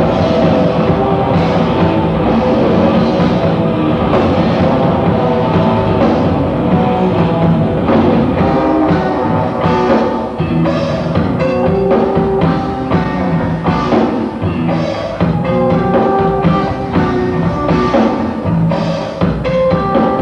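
A rock band playing live, with electric guitar and a drum kit going steadily throughout.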